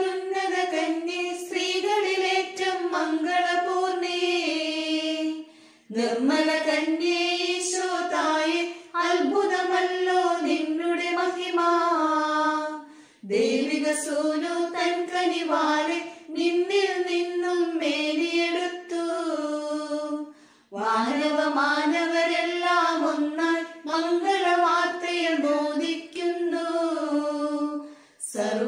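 High voices singing a Malayalam Syro-Malabar canonical-hour prayer hymn in unison, in phrases of about seven seconds broken by short pauses for breath.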